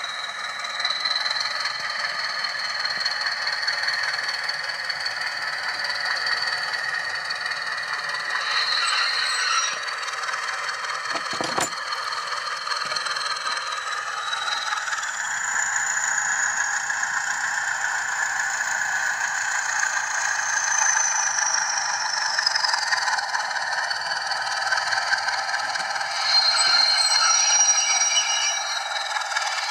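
Zimo sound decoder in an OO-gauge Bachmann Class 20 model locomotive playing a Class 20 diesel engine through its small speaker, the sound thin with little bass. A high whistle in the engine sound falls in pitch about halfway through, over the rattle of the model running on the track, with one sharp click a little before the middle.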